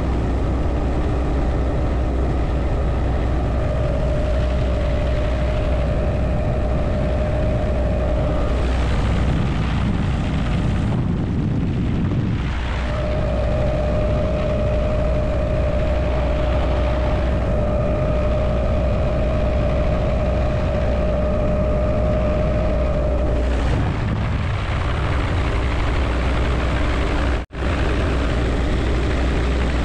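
Helicopter in flight heard from inside the cockpit: the steady beat of the rotor and engine with rushing air, loud throughout. A steady whine fades in and out over it, and the sound cuts out for an instant near the end.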